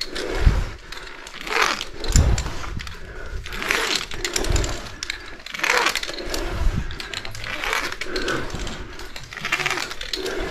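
Mechanical rope ascenders working up a caving rope: cams sliding and gripping, with gear rattling, in a rhythm of strokes about every one and a half seconds.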